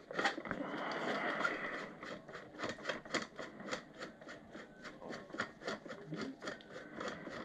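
Handling noise from an airsoft rifle and its foam-lined hard case: rubbing and scraping of plastic and foam, heaviest in the first two seconds, with a run of quick light clicks about four a second.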